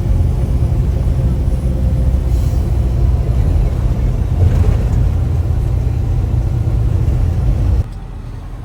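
Steady low road and engine rumble inside a vehicle cruising at highway speed; it cuts off abruptly near the end.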